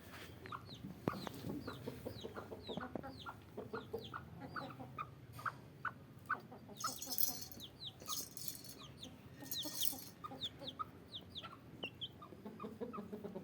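Chickens clucking, with many short, high, falling calls throughout. Bursts of hissy noise come between about seven and ten seconds in.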